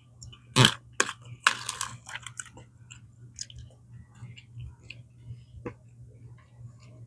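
Close-up eating sounds: a few loud crunchy bites in the first two seconds, then quieter chewing and small mouth clicks, with one more sharp click near the end, over a faint steady low hum.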